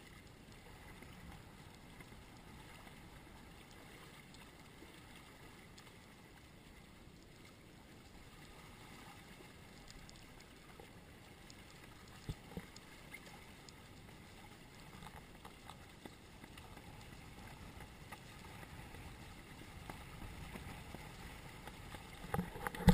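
Low, steady wash of water against the hulls of a Hobie Cat catamaran under sail, with a single light knock about halfway through.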